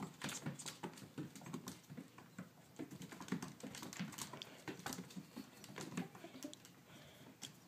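Kitten's paws and claws scrabbling and tapping on a hardwood floor as it pounces and spins. The taps come rapid and irregular, then thin out near the end.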